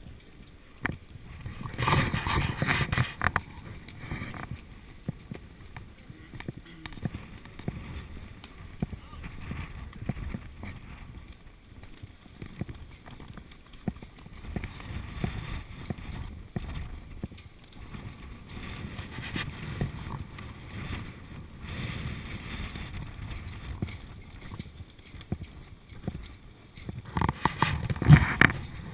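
People talking, louder twice, about two seconds in and near the end, over the steady crunch and shuffle of footsteps on wet asphalt and grit.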